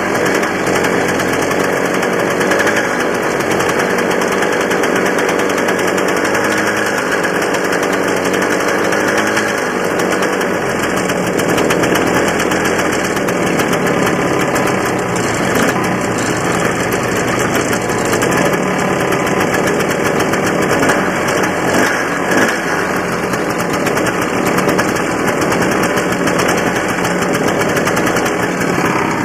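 1984 Honda Odyssey's air-cooled single-cylinder two-stroke engine idling steadily after a cold start. The owner wonders whether it is running lean.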